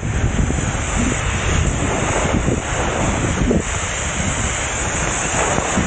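Wind buffeting the microphone of a camera carried by a skier going downhill, mixed with the hiss of skis sliding over snow. The rushing is loud and steady throughout.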